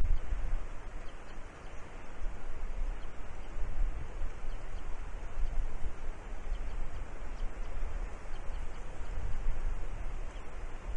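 Wind buffeting an outdoor microphone in gusts, a rough rushing noise with a low rumble that swells and eases every second or so.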